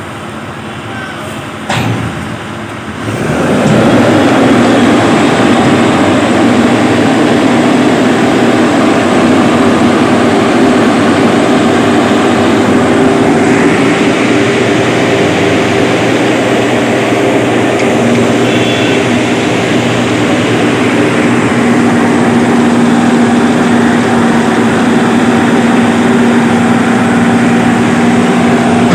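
Heavy engine running steadily, close and loud from about three seconds in, with a steady hum throughout; a sharp click comes just before it rises.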